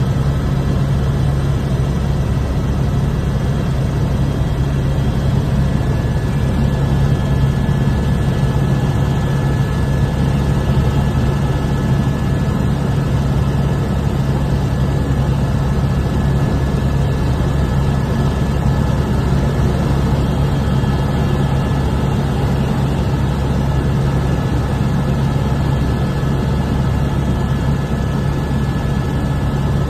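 Airbus AS350 Écureuil helicopter in steady forward flight, heard from inside the cockpit: a loud, even drone of its single turbine engine, main rotor and transmission, with a faint constant high whine over a deep low hum.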